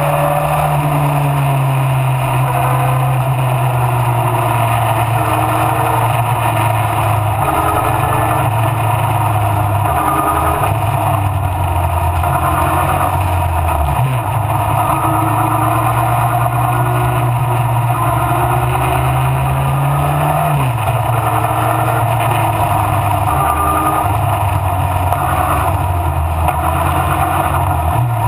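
Mallock Mk8B race car's engine running hard throughout. Its pitch slides up and down with the throttle and shifts abruptly at gear changes, sharply near the middle and again about two-thirds of the way through.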